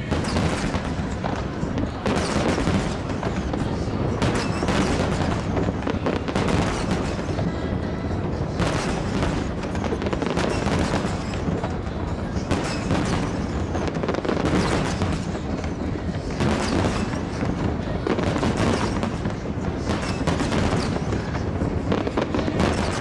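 Aerial fireworks bursting in a rapid, unbroken barrage of booms and crackles, several bangs a second with no pause.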